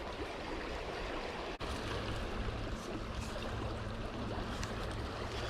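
Steady rush of flowing water at the aqueduct gates. A low steady hum joins after a brief dropout about one and a half seconds in.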